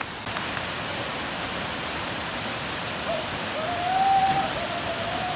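Waterfall's steady rush of falling water. In the second half a long, wavering pitched call sounds over it.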